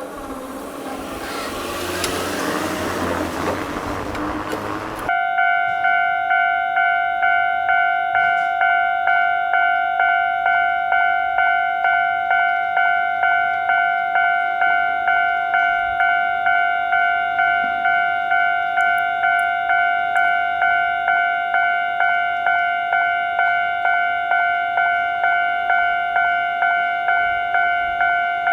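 A train passes with a loud, swelling rushing rumble. After about five seconds it cuts off and a Japanese level crossing's electronic warning bell takes over, ringing 'kan-kan' in an even beat of roughly three strikes every two seconds, each strike fading quickly.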